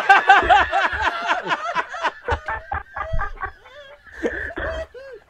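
Hearty, high-pitched laughter in rapid pulses, loudest over the first two seconds, then dying down into breathy wheezes near the end.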